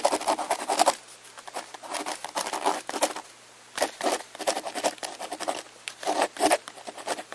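Irregular scratching and crackling close to the microphone, coming in clusters with short pauses, over a faint steady hum.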